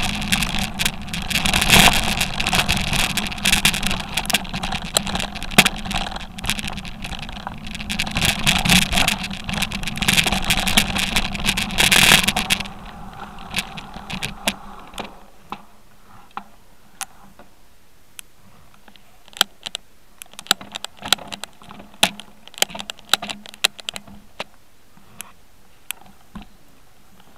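Mountain bike riding fast down a rough, rocky trail: a loud, constant rattle and rumble of tyres and frame over stones. About twelve seconds in it cuts off abruptly as the bike stops, leaving faint scattered clicks and knocks as the bike is walked.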